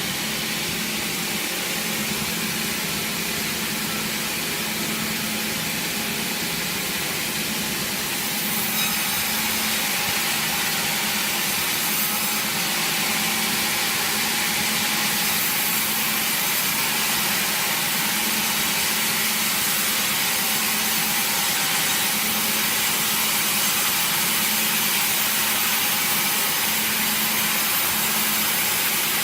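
Sawmill machinery cutting wood: a steady hiss of the saw through timber over a low, even machine hum. It grows a little louder about eight seconds in.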